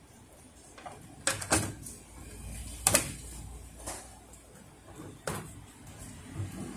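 Black plastic cover of a Ricoh 5001/5002 photocopier fuser unit being fitted back on by hand: a series of sharp plastic clicks and knocks, the loudest about three seconds in.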